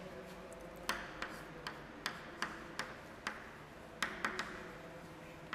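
Chalk tapping and clicking against a blackboard as words are written: a string of short, sharp, irregular taps, about two or three a second.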